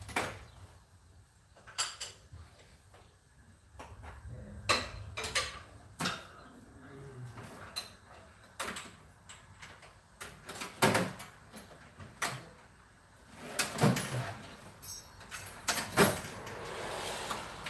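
Hand tools clinking and knocking during work on the underside of a Jeep: a dozen or so sharp, separate clicks and clanks at uneven intervals, with a short scraping, rustling stretch near the end.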